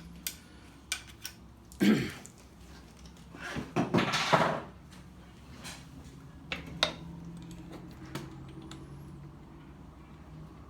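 Scattered clicks and knocks of parts and tools being handled during a short-throw shifter swap on a Tremec T5 gearbox, with two louder scraping bursts in the first half, over a faint steady hum.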